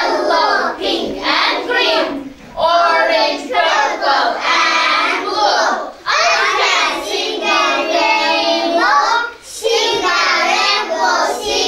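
Young children singing together in class, in phrases broken by a few short pauses.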